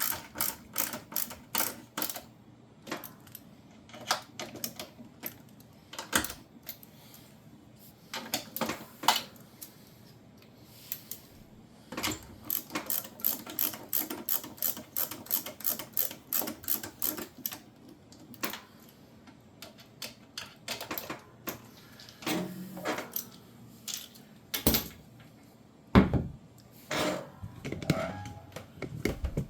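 Ratcheting screwdriver clicking in quick runs as screws are driven into a dishwasher's control panel cover, with a few knocks as the panel is handled near the end.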